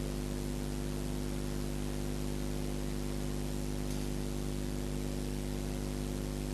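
Steady electrical hum with hiss, unchanging throughout.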